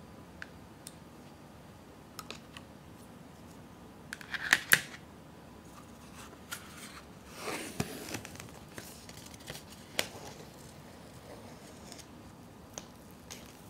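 Paper lid of a Nissin Chicken Ramen cup being peeled back and pulled off once the noodles have steeped. Small taps and crinkles, with a sharp crinkling rustle about four seconds in and a longer peeling rustle around the middle.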